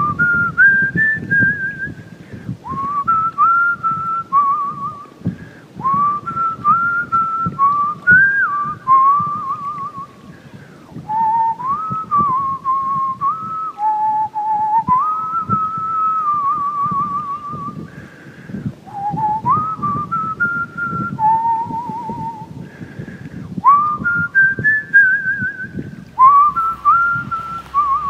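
A person whistling a slow melody in phrases, sliding up into many notes and wavering on the held ones, with low background noise underneath.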